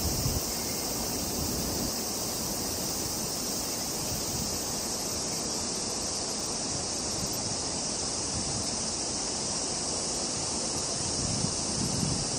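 Steady high-pitched drone of a summer cicada chorus in the trees, unbroken and even in level. Wind rumbles on the microphone in the first half-second and again shortly before the end.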